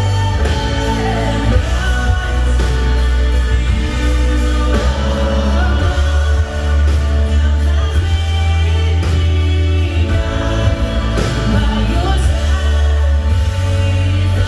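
Live contemporary worship band playing a song: singers' voices over acoustic guitar, keyboard and drums, with heavy bass.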